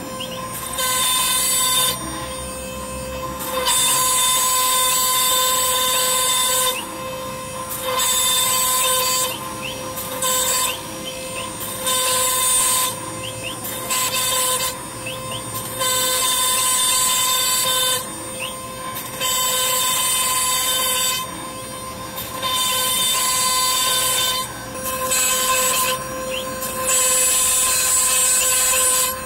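CNC router spindle whining steadily while its cutter mills a fretwork pattern into plywood. A loud hissing cutting noise swells and drops every one to three seconds as the bit works along the cuts.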